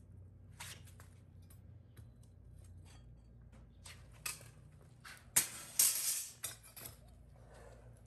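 Steel crucible tongs clinking and scraping against a crucible of molten aluminum bronze as it is gripped and lifted for pouring, with a cluster of louder scrapes a little past the middle.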